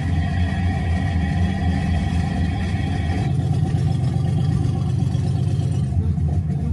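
Vehicle engine running with a steady low rumble. A fainter higher whine over it stops about three seconds in.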